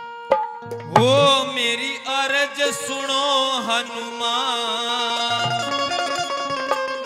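Live Haryanvi bhajan: a man's voice comes in about a second in with a rising swoop and sings a long, ornamented line over steady held notes and dholak drum strokes.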